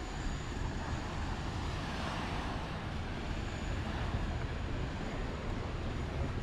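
Steady road traffic noise, a continuous deep wash of passing vehicles, swelling slightly about two seconds in.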